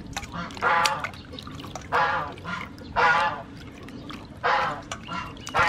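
Domestic fowl calling loudly and repeatedly, about five calls roughly a second apart, over soft splashing of hands washing vegetables in a bowl of water.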